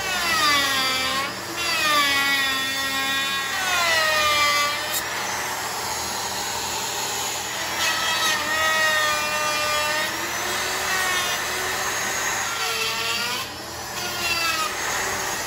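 Handheld compact router cutting along the edge of a plywood cabinet panel. Its motor whine sags in pitch each time the bit takes load, then climbs back, several times over.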